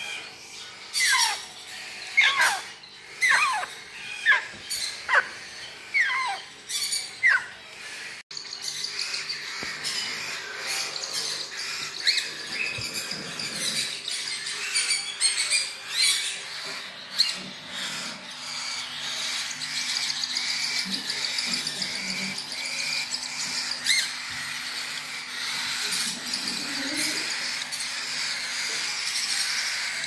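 Parrot chicks calling. First comes a run of squawks about one a second, each falling sharply in pitch. From about eight seconds in there is a continuous, raspy chatter of rapid calls.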